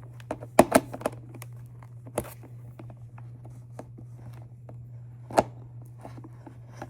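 Scattered small clicks, scrapes and crinkles of a screwdriver backing a small screw out of the plastic and foam of a model jet's battery tray, with a few sharper clicks, over a steady low hum.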